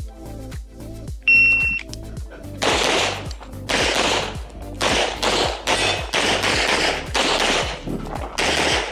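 A shot timer beeps once about a second in. A .40-calibre Limcat competition pistol then fires a string of about nine shots, roughly one every two-thirds of a second, over background music with a steady beat.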